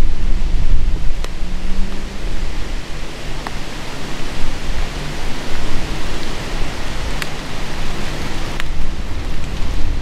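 Strong wind rushing through the woods and buffeting the microphone, a loud gusting hiss with a heavy low rumble. A few faint sharp ticks come through it.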